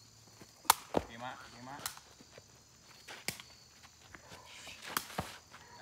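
Sharp knocks at irregular intervals, six in all, two of them close together about five seconds in, with faint voices behind them.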